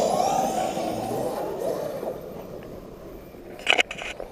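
Electric RC car driving away over dirt: tyre and drivetrain noise with a motor whine that fades over the first couple of seconds. A few sharp knocks come near the end.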